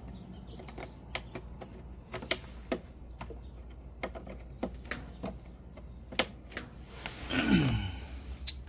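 Irregular clicks and taps of hands handling small washer parts while a capacitor is being fitted. Near the end comes a louder, longer sound that falls in pitch.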